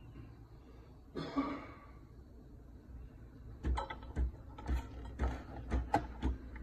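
Breville espresso machine's steam wand steaming milk in a stainless steel pitcher. There is a short burst of hiss about a second in, then from a little past halfway a rhythmic pulsing chug about twice a second as the machine feeds the steam.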